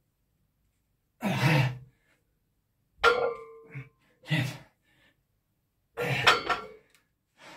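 A weightlifter breathing out hard in short grunting bursts, five in a row, while pulling reps of a 127.5 kg deadlift. Two of the bursts, about three and six seconds in, come with a short ringing metal clank.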